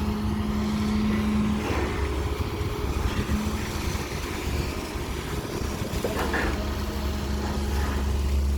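Diesel engine of a Caterpillar 320 long-reach excavator running steadily with a low drone and a steady hum. The hum drops out briefly about one and a half seconds in and returns later.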